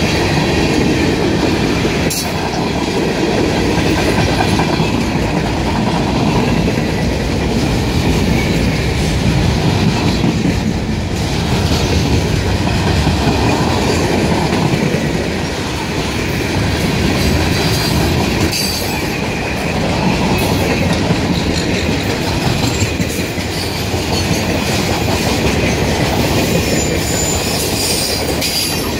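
Freight train cars rolling past on the rails, a steady loud rumble of wheels on track that swells and eases slowly.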